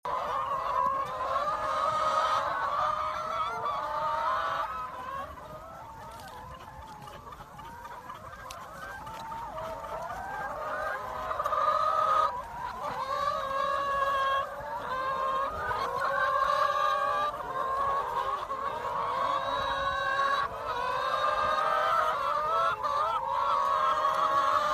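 A large flock of laying hens clucking and calling together, many voices overlapping. The calls ease off for a few seconds about five seconds in, then build back up.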